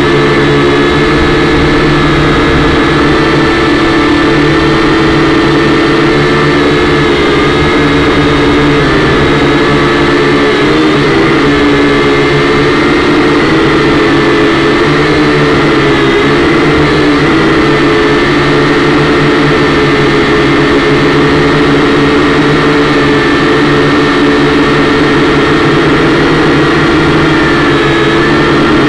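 Kyosho Quattrox EYE toy quadcopter's four motors and propellers whirring steadily in flight, heard close up through the drone's own onboard camera. The pitch wavers slightly now and then as it holds and shifts its hover.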